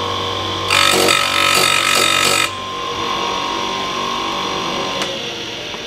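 Electric chainsaw-chain sharpener grinder running with a steady hum; about a second in, the grinding wheel is brought down lightly onto a chain cutter, giving a harsh, hissing grind for about two seconds before the motor runs on alone. A single click near the end.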